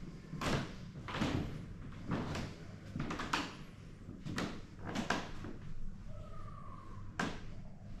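Footsteps on old wooden floorboards, an uneven series of knocks about one a second, with a brief faint creak about three-quarters of the way through.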